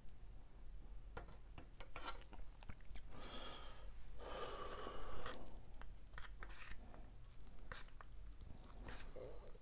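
Fork stirring and scraping noodles in an instant noodle cup, heard close up, with scattered clicks and rustles as the cup is handled; the loudest scraping comes in two stretches a little after the middle.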